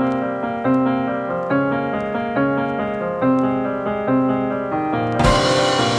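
Solo piano music playing a gentle, repeating broken-chord figure. About five seconds in, a sudden sharp crack with a hissing tail cuts in over the piano.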